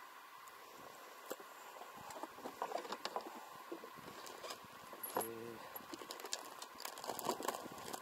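Hands rummaging in an open plastic tackle box, rustling soft-plastic lure packets and knocking tackle about in a run of small irregular clicks and rattles, with a short low buzz about five seconds in.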